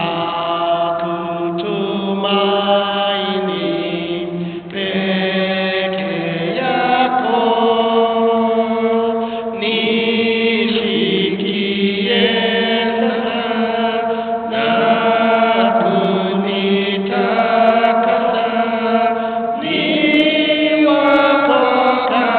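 Voices singing a slow Swahili hymn, long held notes moving from one pitch to the next.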